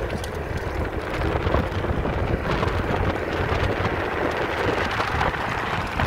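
Wind buffeting the microphone of an electric scooter riding along a paved path, a rough, unsteady rumble with tyre and road noise beneath it.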